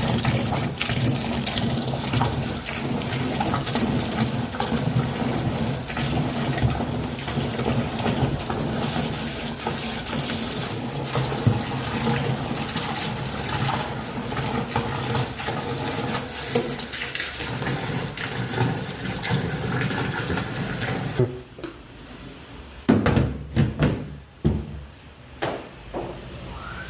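Washing machine running, water churning and sloshing in the drum over a steady motor hum. About three-quarters of the way through it stops, and a few knocks and clatters follow.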